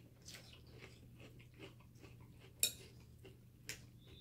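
Metal spoon clinking and scraping in a ceramic bowl of cereal and milk: faint scattered clicks, with one sharp clink about two and a half seconds in and another about a second later.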